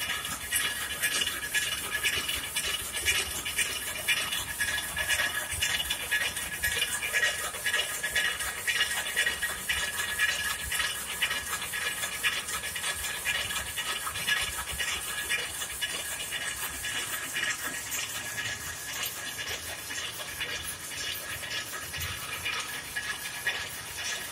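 Converted rapier loom with a tuck-in selvedge device running at speed: a steady, rapid mechanical clatter of the beating-up reed and rapier drive, with a high metallic ringing over it.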